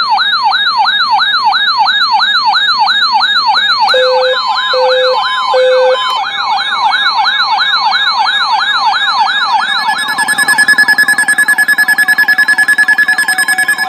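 Weather alert radios sounding their alarm: a loud siren-like tone of quick falling sweeps, about three a second, with three short low beeps about four seconds in. About ten seconds in, a rapid high-pitched beeping joins and becomes the loudest sound.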